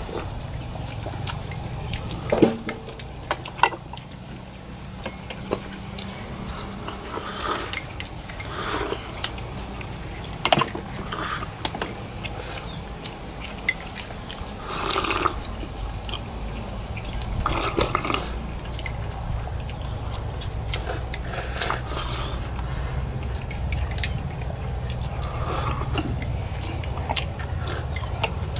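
Slurping of pho broth and noodles in short bursts, with sharp clinks of bowls and chopsticks, over a steady low hum.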